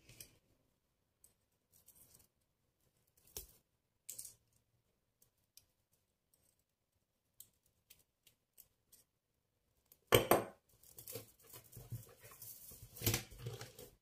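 Sparse small clicks of faceted crystal beads and copper wire as a beaded tiara branch is worked with pliers. From about ten seconds in, louder rustling and clicking as the beaded piece is handled and pressed flat on a cloth.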